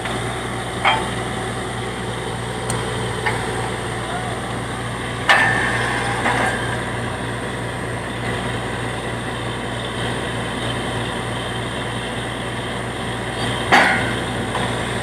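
Truck-mounted borewell drilling rig running steadily, its engine and air compressor giving a constant drone while it drills. Sharp knocks with a short ring cut through it several times, the loudest about five seconds in and near the end.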